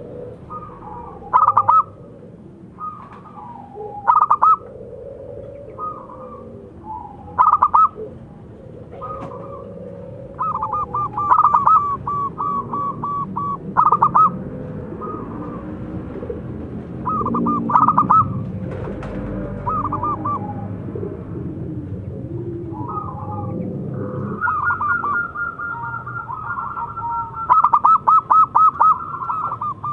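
Zebra dove (perkutut) singing: short bursts of quick, rapidly pulsed trilling coos every few seconds, then almost unbroken calling over the last several seconds.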